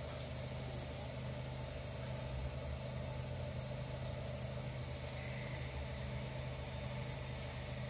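Samsung refrigerator's compressor running with a steady low electrical hum.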